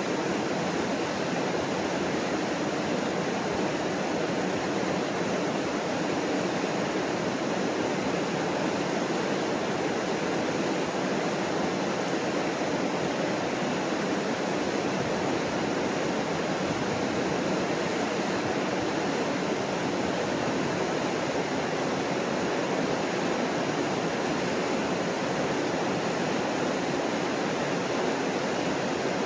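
Steady rushing roar of the Mississippi River's whitewater pouring over the low rock falls and rapids, an even, unbroken water noise.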